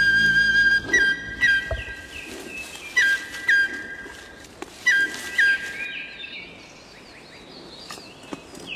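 Flute playing high, held notes in short phrases, some starting with a quick upward flick, as a call to lure a giant panda. It stops about six seconds in, leaving faint bird chirps.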